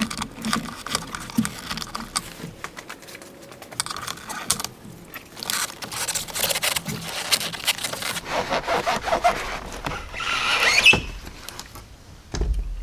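A small shield at the back of a Jeep 3.6L intake manifold being worked loose by gloved hands: a run of clicks, rattles and scrapes, with a louder scrape about ten seconds in and a dull thump near the end.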